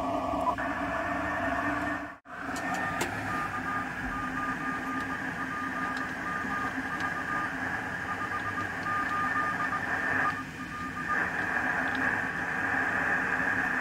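Radio receiver static from an ICOM IC-705 on the 10-meter band. It cuts out briefly about two seconds in, then a faint Morse code signal beeps on and off at one pitch through the middle. Near the end the static gets stronger as the magnetic loop antenna is tuned toward resonance.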